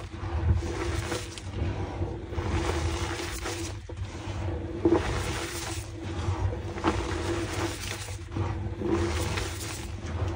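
Blocks of pink gym chalk crunching and crumbling in irregular crisp strokes, several seconds apart at times and closer together at others, over a steady low hum.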